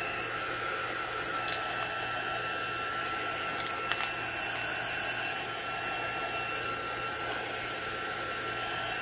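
Handheld craft heat tool blowing steadily with a high fan whine, drying fresh chalk paint on small wooden beads. Two light clicks about a second and a half and four seconds in.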